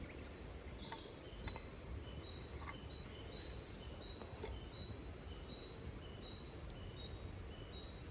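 A small bird repeating a high two-note call, alternating a higher and a lower note at about three notes a second, with a few light knocks in the first few seconds over a low outdoor rumble.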